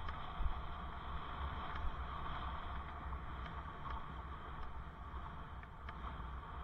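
Steady wind rush and low rumble on a helmet camera's microphone while riding a bicycle, with tyre and road noise underneath. Two brief bumps in the first two seconds.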